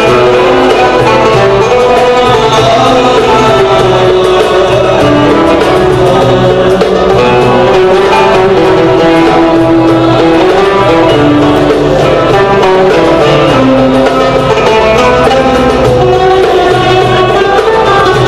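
Live Turkish art music ensemble playing: plucked strings such as oud and bağlama with violins, carrying a continuous melody at a steady loud level.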